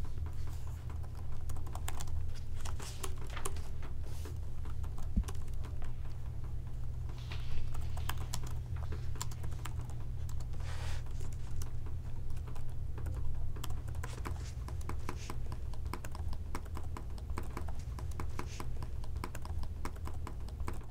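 Many light, irregular clicks and taps at a desk, like keyboard typing, over a steady low hum.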